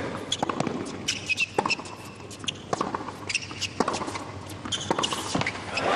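Tennis rally on a hard court: sharp racquet strikes and ball bounces, with crowd noise swelling near the end as the point finishes.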